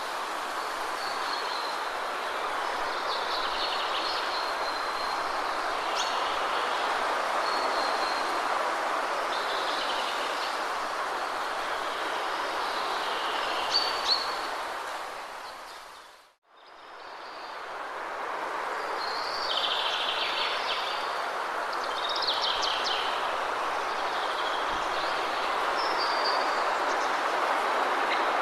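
Steady rushing of a waterfall with birds chirping over it in short, repeated calls. About halfway through, everything fades out to silence for a moment and fades back in.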